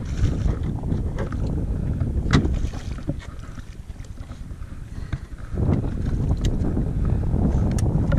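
Wind buffeting the microphone with a low rumble that eases for a couple of seconds midway, with a few sharp clicks and knocks from handling the spinning rod and reel.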